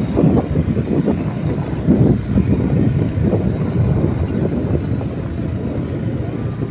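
Vehicle driving along a dirt road: a steady low rumble of the ride, with wind buffeting the microphone.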